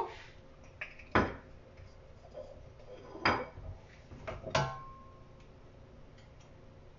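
Three sharp knocks of cookware: frying pans being shifted on a glass-top stove and a glass oil carafe set down on the counter. The last knock leaves a short metallic ringing tone.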